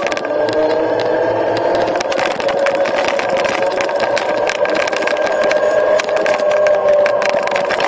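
Dualtron Eagle Pro electric scooter's dual hub motors whining steadily while cruising, the pitch rising slightly in the first second. Wind buffets the camera microphone throughout with a crackling rush.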